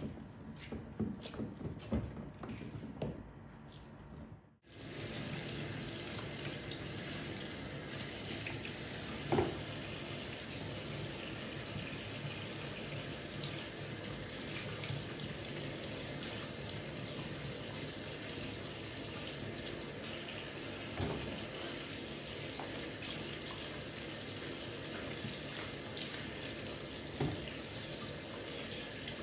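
Kitchen tap running steadily into a sink, with a few knocks of things being handled in it. The tap starts after an abrupt break about four and a half seconds in; before that there are only scattered clicks and knocks.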